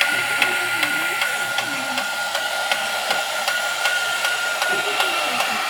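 Battery-operated Horikawa tin toy robot running: its small electric motor whines at a steady pitch while its gear mechanism clicks regularly, about two to three clicks a second.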